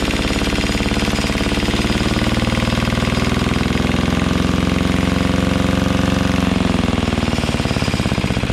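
Yanmar 1GM10 single-cylinder marine diesel running smoothly at about 2,000 RPM during its break-in run after new rings and bearings. Its pitch drops about two-thirds of the way through as it is throttled back.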